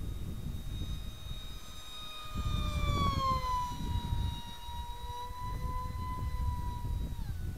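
Brushless outrunner electric motor (Turnigy 2836-3200 on a 4-cell LiPo) and 5x5 APC propeller of an RC flying wing in flight, giving a high whine that glides lower about three seconds in and drops again near the end. Wind rushes over the microphone underneath.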